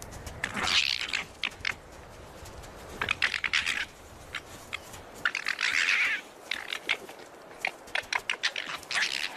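Paws crunching and scrabbling through snow in four short bursts, at about one second in, around three seconds, around six seconds and near the end, with sharp crunchy clicks in between.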